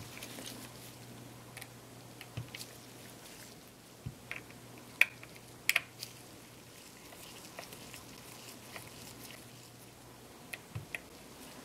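Scattered small clicks and taps from a precision screwdriver and gloved hands working the front screws of a Canon EOS 60D body, the sharpest about five seconds in and a close pair just after. Under them is a faint steady low hum that stops near the end.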